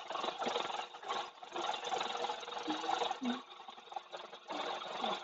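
Electric hand mixer running, its beaters churning a milk and cheese mixture in a bowl. The noise rises and falls unevenly, dipping briefly about a second in and again around the middle.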